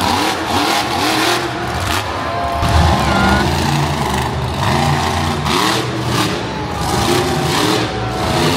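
Monster truck engines running loud and revving, their pitch rising and falling again and again. A deeper, steadier engine note joins about three seconds in.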